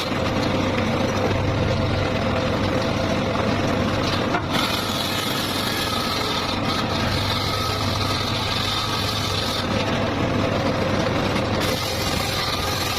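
Circular saw running steadily with a constant machine hum while cutting wood, the higher hiss of the cut changing a few times.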